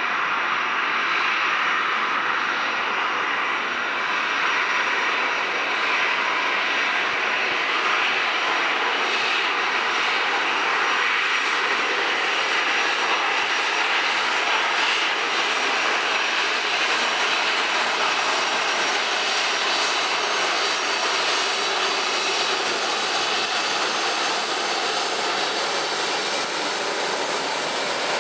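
Boeing 737-400's CFM56 turbofan engines running at low taxi thrust as the airliner rolls along the taxiway: a steady, even jet noise that holds at one level throughout.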